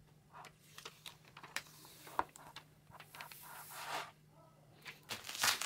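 Plastic screen-protector film and its release liner being handled over a tablet: scattered light clicks, taps and rustles, turning to louder plastic crinkling near the end.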